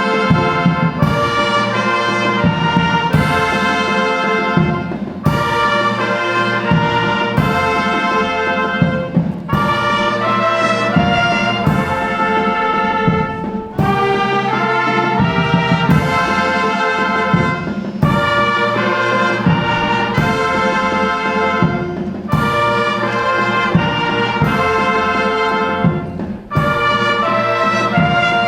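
A live brass-led ensemble from a music conservatory playing, with trumpets and trombones holding full chords and a new accented chord coming every couple of seconds.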